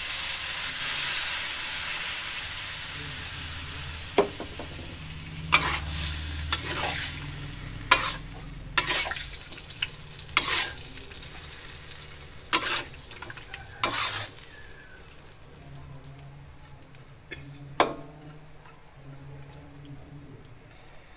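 Spiced fish sizzling in a hot wok as a little broth is poured in, the hiss dying down over the first few seconds. Then a metal spatula stirs and scrapes against the wok, with about ten sharp clinks.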